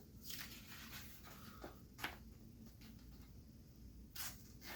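Faint handling of a metal pocket knife: light scraping and rubbing, with a sharp click about two seconds in and a brief rustle near the end.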